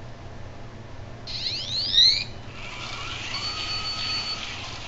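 FEZ Mini robot's buzzer sounding a quick run of rising beeps lasting about a second, then its small gear motors whirring steadily as the robot drives and spins.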